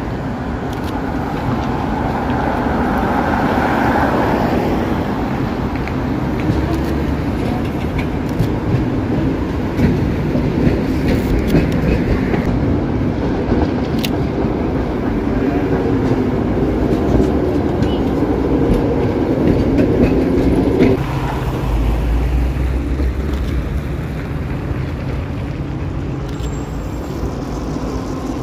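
Vintage tram running along street track towards the listener: steady motor hum and wheel-on-rail noise that grows louder as it approaches, easing off a little after about twenty seconds in.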